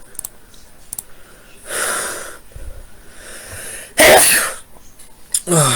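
A person coughing: a softer burst about two seconds in and a loud, sudden one about four seconds in, then a short vocal sound falling in pitch near the end.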